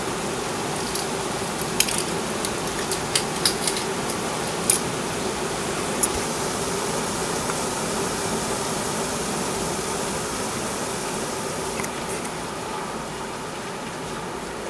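Steady rain falling, with sharp drips or drops hitting close to the microphone several times in the first six seconds, over a faint steady hum.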